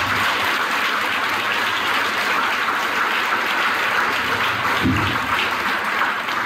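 Audience applauding steadily at the close of a speech.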